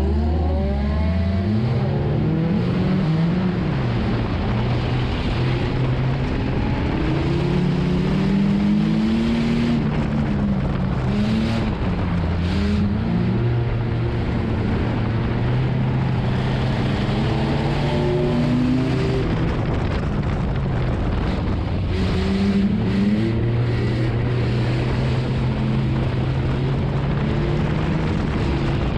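Nissan enduro race car's engine heard from inside the cabin, revving up and down over and over as it is driven around the track, with the engines of other race cars close around it.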